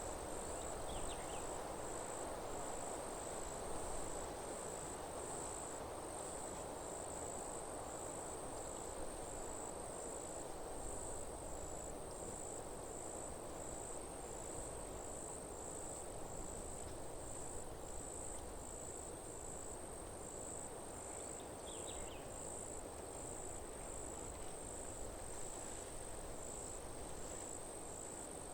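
Insects chirping in a high, evenly pulsed rhythm, like crickets, over a steady background rush. Two brief bird chirps come through, about a second in and again near the end.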